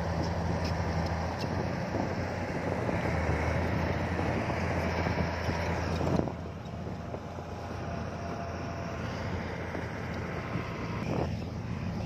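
Diesel engine of heavy earthmoving equipment running steadily, with a sudden drop in loudness about halfway through.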